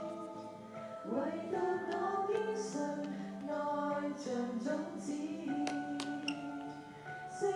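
Several voices singing a song together, choir-style, with held notes that step between pitches.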